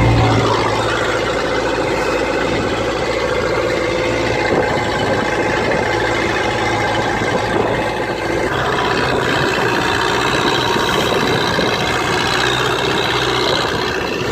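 Small fishing boat's engine running steadily. Its deep low note drops away right at the start, as the engine is throttled back.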